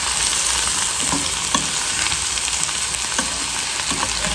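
Sliced maxixe sizzling in hot olive oil in a pot while a wooden spoon stirs and turns it, a steady frying hiss with a few light knocks of the spoon.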